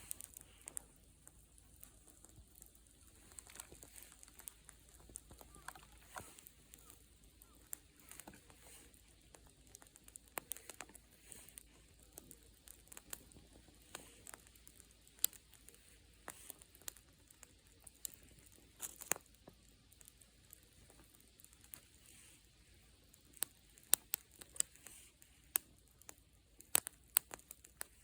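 Wood fire crackling: irregular sharp pops and snaps over a faint steady hiss, coming thicker and louder near the end.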